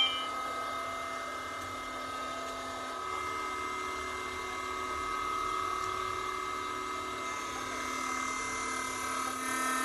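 Hydraulic hose crimping machine's electric motor and hydraulic pump running unloaded with a steady hum, a little louder from about three seconds in.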